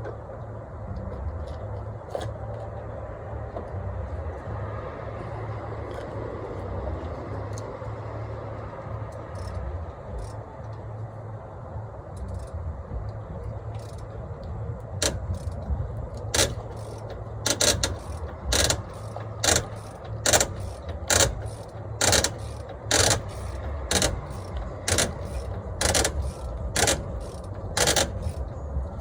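Sharp metallic clicks, about two a second through the second half, from a wrench turning the slack adjuster's adjusting nut on a truck's steer-axle drum brake to take up the new brake shoes. A steady low hum runs underneath.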